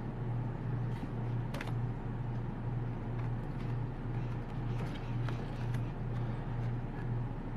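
A steady low hum, slightly pulsing, with a few faint clicks and taps as cardboard postcards are handled and swapped one for another.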